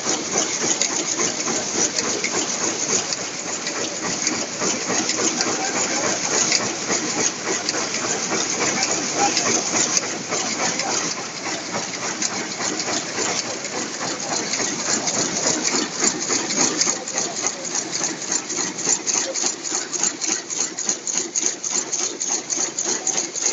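Dobby rapier loom running at speed while weaving cotton grey cloth: a fast, even mechanical clatter of repeated strokes.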